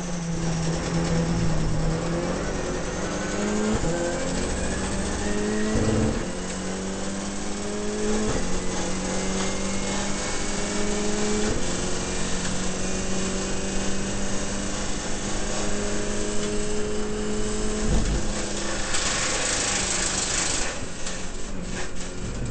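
Renault Clio Cup race car engine at full throttle, heard inside the cockpit: the pitch climbs and drops back at each upshift, four times in the first twelve seconds or so, then holds high and steady. A sharp knock comes about eighteen seconds in, followed by a couple of seconds of loud hiss.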